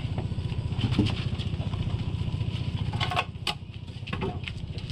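An engine running steadily with a low, even throb, with a few sharp knocks about three seconds in and again shortly after.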